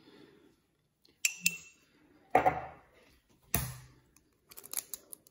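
Sharp clinks and knocks of a utensil against dishware while turmeric is added to raw chicken in a bowl. There are two quick clinks a little over a second in, louder knocks at about two and a half and three and a half seconds, and a quick flurry of small ticks near the end.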